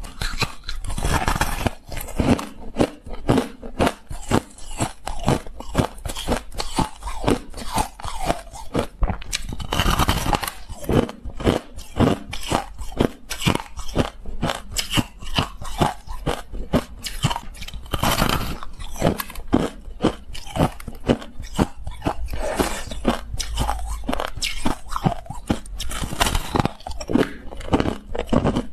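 Close-up crunching of frosty crystalline ice being bitten and chewed: rapid, crisp crunches, several a second, with a few louder bites breaking off chunks.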